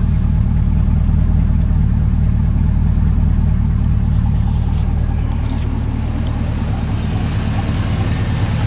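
Chevrolet Silverado 3500's 6.0-litre LY6 Vortec V8 idling steadily at about 700 rpm. Near the end a brighter whir comes up as the engine is heard from the open engine bay.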